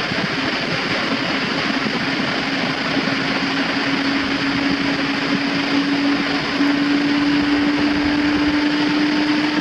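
BMW K1600 GTL's inline-six engine pulling in sixth gear at autobahn speed under a steady rush of wind and road noise. Its note rises slowly as the bike gathers speed, with a small step up about two-thirds of the way through.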